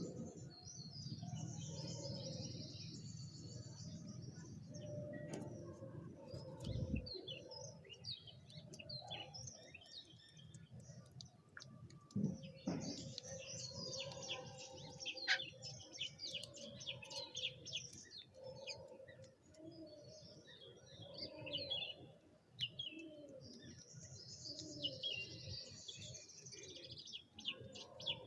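Small birds chirping and twittering rapidly and continuously, many calls overlapping, over a low background rumble, with a couple of dull thumps.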